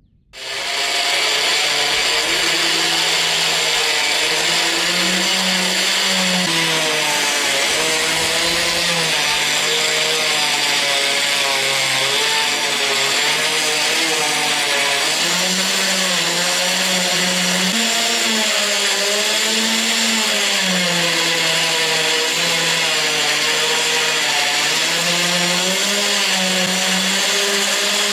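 Bench-clamped rotary tool switching on and running steadily with a polishing wheel, buffing the engraved metal case of a lighter. The motor whine wavers up and down in pitch over a steady hiss.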